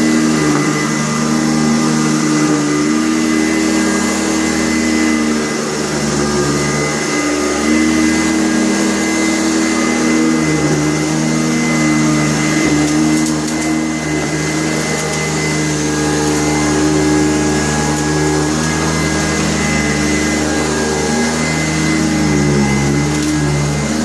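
Sanitaire SC684 upright vacuum cleaner running steadily: a motor hum with a high whine, its low tones shifting slightly now and then.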